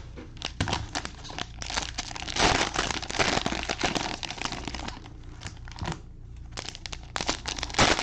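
Clear plastic wrapping on Panini Prizm football cello packs crinkling and tearing as gloved hands pull it open, in irregular bursts that are densest from about a second and a half in and again near the end.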